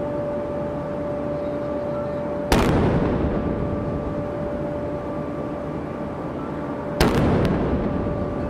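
Ceremonial saluting cannons firing a gun salute: two loud blank shots about four and a half seconds apart, each echoing away slowly.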